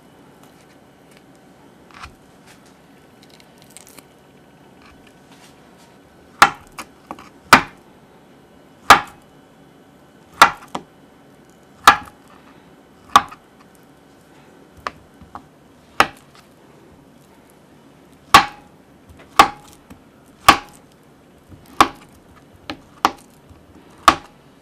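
Kitchen knife cutting avocado into chunks on a wooden cutting board. The blade knocks sharply on the board about once a second, some cuts with a lighter extra tap, starting some six seconds in.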